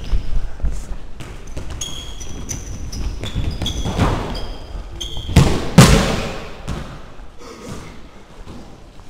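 Indoor football in a sports hall: several short, high squeaks of trainers on the floor, then two loud thuds of the ball about five and a half seconds in.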